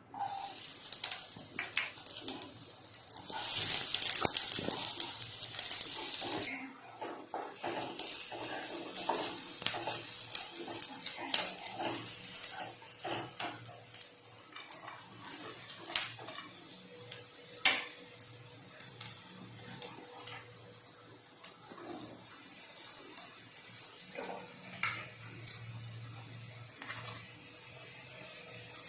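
Kitchen cooking sounds: metal utensils clinking and scraping against pots and dishes, with a loud hiss lasting about three seconds, starting about three seconds in.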